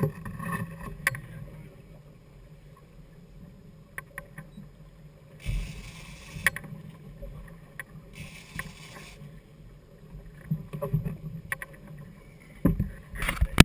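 Twin outboard motors running low and steady on a sportfishing boat, with two short bursts of hiss about five and eight seconds in, scattered sharp clicks, and a few heavier thumps near the end.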